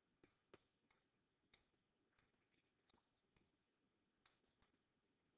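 Faint, light clicks at irregular intervals, about eleven in five seconds: a stylus tapping on a tablet or touchscreen while numbers are handwritten.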